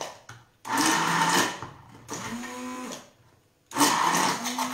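Immersion blender run in three short pulses, puréeing a small batch of tomato, olive-oil and lemon sauce. Each pulse is a steady motor whine with a hiss. The second is quieter, and the third starts near the end.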